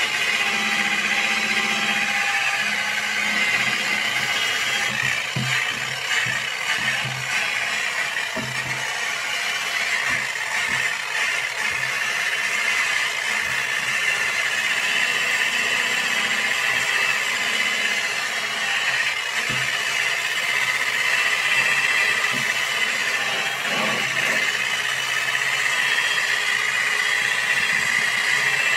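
Electric buffer (polisher) running steadily on its low setting with a foam pad, working rubbing compound over a plastic headlight lens to polish out sanding haze and oxidation.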